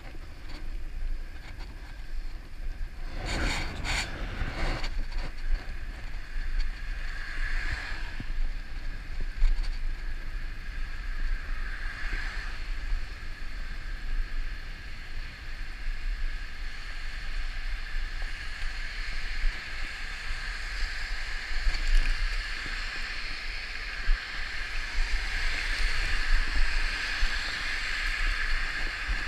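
Wind buffeting the microphone of a bicycle-mounted camera at riding speed, over the hiss of bicycle tyres on wet asphalt. A few sharp knocks come about three to four seconds in, and the hiss swells louder near the end.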